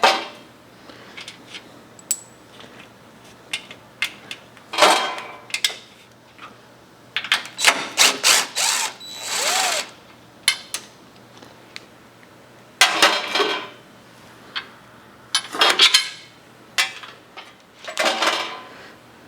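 Handheld power tool running in short bursts, about half a dozen over the stretch, as bolts are driven out of the bulldozer's front grille, with metal clinks between the bursts.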